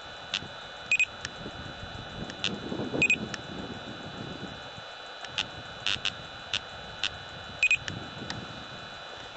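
LTI UltraLyte 100 LR laser speed gun beeping as three shots are fired: about a second in, about three seconds in, and near the end. Shorter ticks come in between, over a steady high whine.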